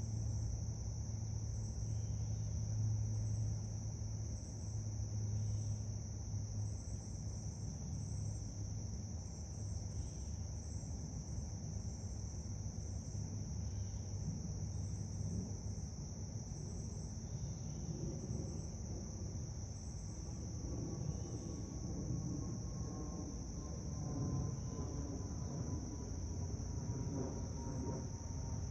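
Outdoor insect chorus: a steady high-pitched trill with a faint regular pulsing, over a low hum that fades about halfway through.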